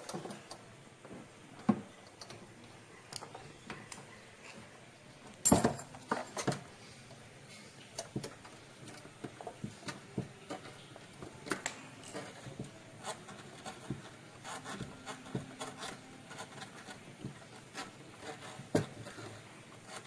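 Irregular clicks, taps and rubbing of hands handling plastic and metal parts and wiring inside the base of a twin-tub washing machine, with a sharper knock about five and a half seconds in.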